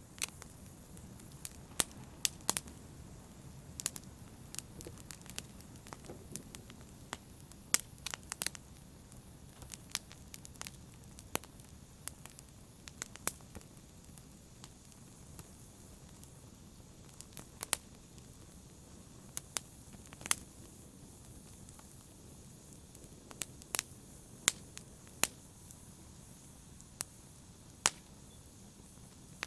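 Wood fire burning in a fireplace: a low, steady rush with sharp crackles and pops at irregular moments, about one every second or so, sometimes several close together.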